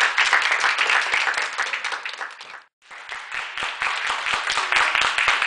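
A small audience applauding, many hands clapping at once. The applause breaks off abruptly for a moment about two and a half seconds in, then starts again.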